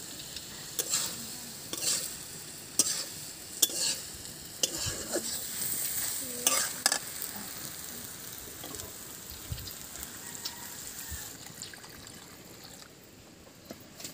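Soyabean, ivy gourd and potato sizzling in a hot oiled pan while a spatula stirs, with a run of sharp scrapes and knocks against the pan in the first seven seconds. The sizzle eases toward the end.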